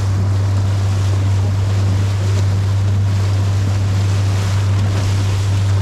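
Nab 17 fishing boat's engine running steadily under way, a constant low drone, with wind buffeting the microphone and water rushing past the hull.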